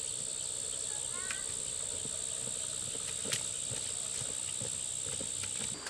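A steady high-pitched drone of forest insects, with scattered footsteps and light knocks on a dirt path, the sharpest about halfway through. The drone cuts off just before the end.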